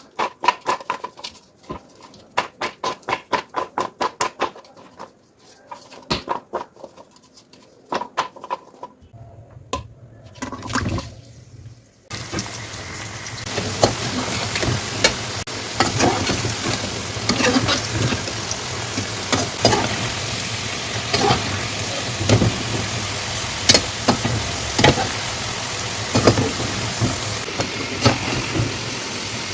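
Quick, evenly spaced utensil strokes for the first several seconds. Then, from about twelve seconds in, a steady sizzle of food frying in a pan, broken by frequent scrapes and knocks of stirring.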